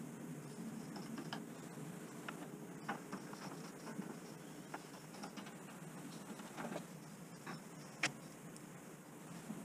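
Faint scattered clicks and light taps of parts and tools being handled during lawnmower reassembly, over a low steady background hum. The sharpest click comes about eight seconds in.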